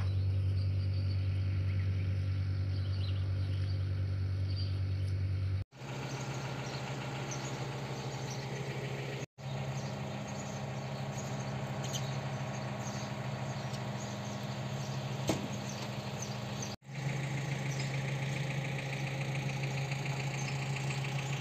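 Steady low hum of an idling engine, broken by three brief, abrupt gaps.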